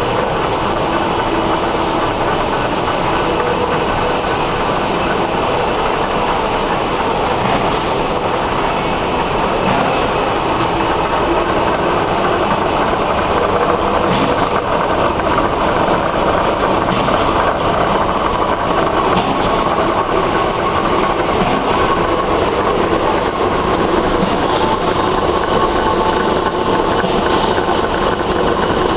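Non-woven bag loop handle cutting machine running steadily, a continuous dense mechanical clatter with a faint steady hum underneath.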